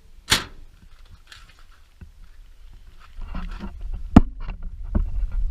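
A single sharp, loud clack about a third of a second in. From about three seconds in, a low rumble of wind on the microphone, with two sharp clicks near four and five seconds in.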